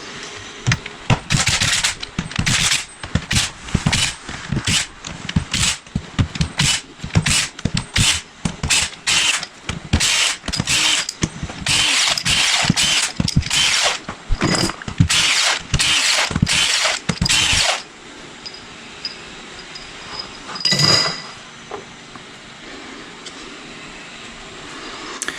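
A ratchet wrench turning out crankcase bolts in quick runs of ratcheting, one short stroke after another, for about eighteen seconds, then stopping. A single ringing clink follows a few seconds later.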